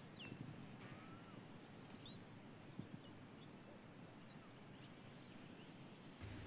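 Near silence: faint outdoor ambience with a few brief, faint bird chirps.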